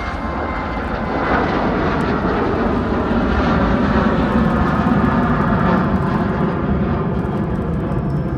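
Jet airliner's engines passing close by, the noise swelling about a second in and staying loud.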